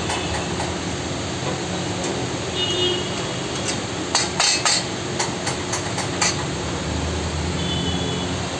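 Steel tea strainer and ladle clinking against a steel pan, with a quick run of sharp clinks about halfway through. Under it runs a steady din of road noise.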